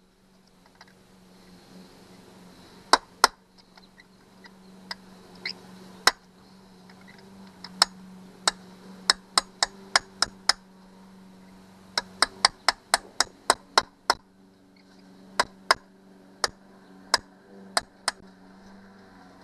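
Hammer striking a steel pin punch against a rust-seized broken screw stud on a Johnson 90 hp outboard, to dent a starting point for a drill bit: sharp metallic taps, at first one at a time, then in quick runs of three to four a second, about thirty in all. A steady low hum runs under the taps.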